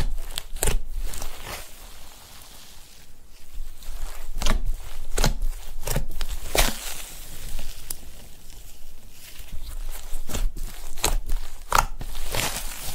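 Fingers poking and pressing into soft fluffy slime, making squishy crackles and sharp pops at uneven intervals.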